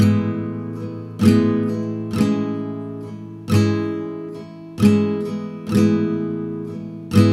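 Background music: slow strummed acoustic guitar chords, each chord left to ring out and fade before the next strum.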